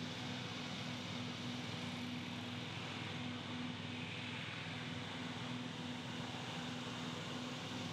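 A steady low mechanical hum under a faint hiss, unchanging throughout.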